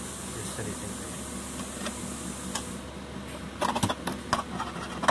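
A steel spoon clinking and knocking against a nonstick pan of melted ghee and caramelised sugar, in a cluster of sharp clicks about three and a half seconds in, as it is set down in the pan. Under it runs a steady mechanical hum with a faint hiss that drops away shortly before the clinks.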